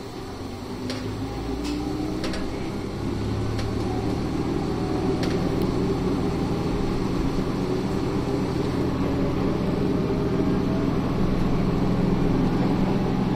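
Isumi 350-series diesel railcar pulling away from a station, heard from inside the car: the engine and running gear grow louder over the first few seconds as it gathers speed, then run steadily. A few sharp clicks come in the first five seconds.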